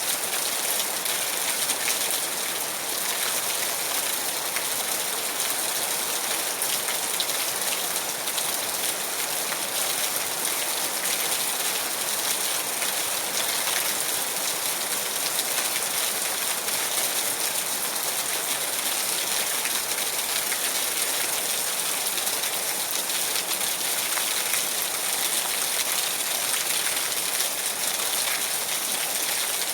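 Steady rainfall: an even hiss of rain with fine pattering of drops, holding constant throughout.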